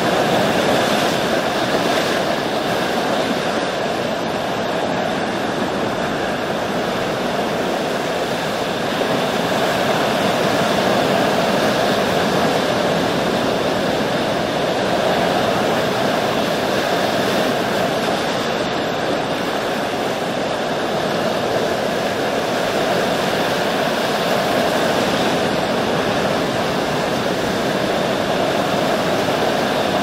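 Ocean surf: a continuous wash of breaking waves, steady, with gentle slow rises and falls in level and no single crash standing out.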